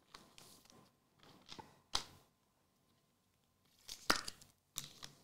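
Trading cards being handled by hand: soft rustling of card stock, a sharp snap about two seconds in, and a louder cluster of scrapes and snaps near the end.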